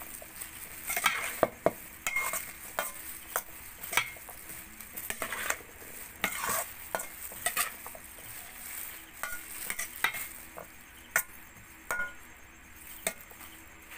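Metal spoon stirring a chopped corn and vegetable salad in a stainless steel bowl: irregular scrapes and clinks of the spoon against the bowl.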